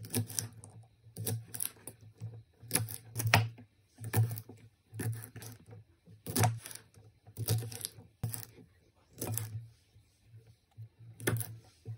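Kitchen knife chopping through a bundle of thin green vegetable stalks onto a wooden cutting board: crisp knocks about once a second, unevenly spaced, some in quick pairs.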